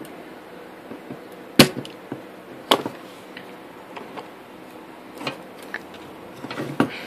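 Sharp clicks and knocks of hand tools and a circuit board being handled and set down on a wooden workbench, over a faint steady hiss. The loudest knock comes about one and a half seconds in, and others follow near three, five and seven seconds.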